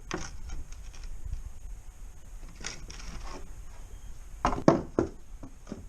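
Handling noises on a workbench: a few light clicks, then several sharp knocks about four and a half seconds in, as objects are picked up and set down.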